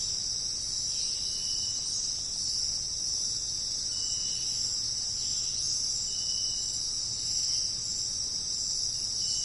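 Steady, unbroken high-pitched insect chorus of crickets or cicadas, with a short, faint lower note repeating about every three seconds.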